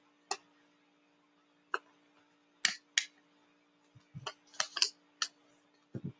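Origami paper being folded and creased by hand on a desk: short, sharp paper crackles and snaps at uneven intervals, with a couple of soft thuds of hands on the desktop about four seconds in and near the end.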